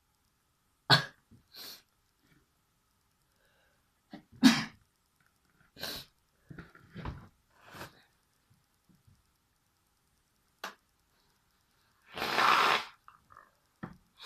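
A person sneezing, the sneezes set off by a tissue pushed into the nostril. A sharp sneeze comes about a second in and a louder one about four and a half seconds in. Short sniffs and breaths come between, and a longer burst near the end.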